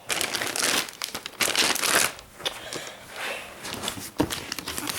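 Packaging crinkling and rustling in irregular surges as a present is handled and unwrapped, with a sharp click about four seconds in.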